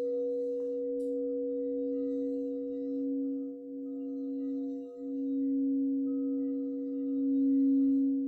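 Singing bowls sounding a steady, sustained hum of two main low tones with fainter higher overtones, the sound swelling and dipping in slow waves.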